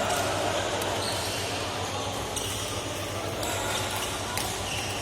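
Sports shoes squeaking on an indoor court, with a few sharp hits from play at irregular intervals over the hall's background chatter.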